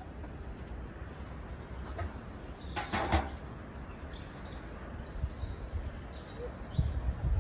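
Outdoor ambience with small birds chirping in short, thin, high notes, a brief rustling flurry about three seconds in, and a few low footfalls on wood chips near the end.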